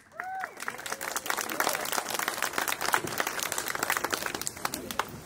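Crowd applauding, with a few short high-pitched calls in the first second.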